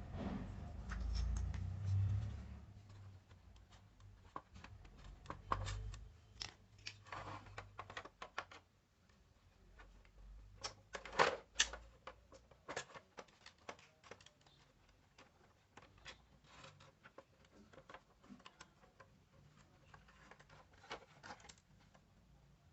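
Irregular clicks, taps and scrapes of small parts and tools being handled, with a low rumbling thump in the first two seconds and the loudest cluster of clicks about halfway through.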